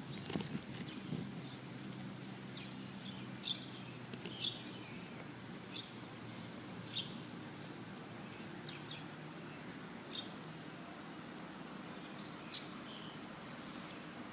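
Small songbirds chirping: short, high single chirps and brief twitters every second or two, over a steady low background noise.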